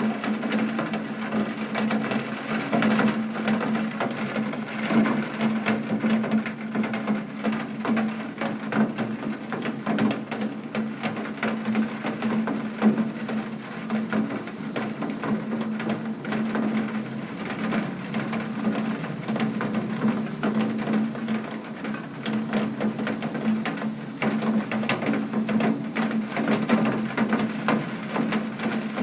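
Rain falling steadily, a dense, even patter of drops hitting a hard surface.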